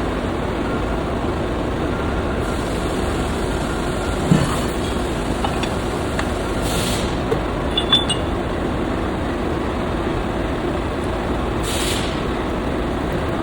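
Machine tool cutting keyways in metal parts, running with a steady mechanical noise, a few short metallic clinks and two brief hisses.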